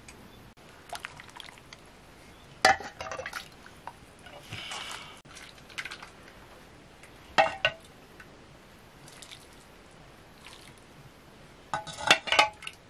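Stainless steel pots, plates and a metal ladle clinking as food is served: a few sharp, ringing clinks several seconds apart, then a quicker cluster near the end, with a softer noise lasting about a second about a third of the way in.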